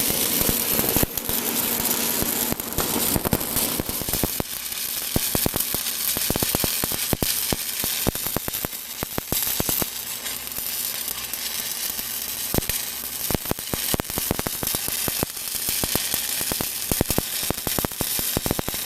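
Arc welding on a pipeline pipe: a steady crackling sizzle full of sharp pops.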